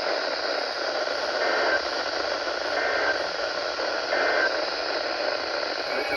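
Steady hiss of static from a weather radio receiver, with no voice on the channel.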